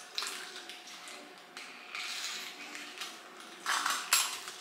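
Clicks, knocks and rubbing from a black silicone mold being twisted and worked in the hands over a kitchen sink, with two louder knocks close together near the end.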